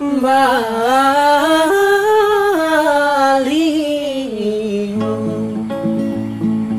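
Indonesian-language song with guitar: a singer draws out a long, wavering sung line ending on the word "Bali". The voice then stops, and the guitar carries on alone for the last couple of seconds.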